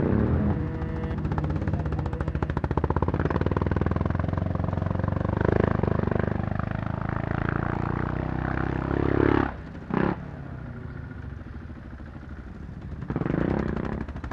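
Quad (ATV) engine running and revving, swelling a couple of times before dropping to a quieter run about two-thirds through. A sharp click follows, and the engine revs up again near the end.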